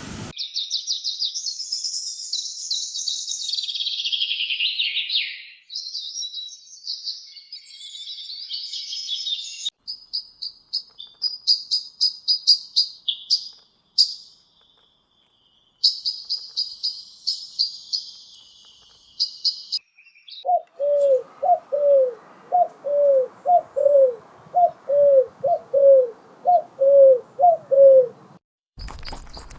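Birds chirping and calling in a run of separate short clips: dense high twittering first, then a series of sharp, evenly spaced high chirps. After that comes a lower, down-curving call repeated about twice a second.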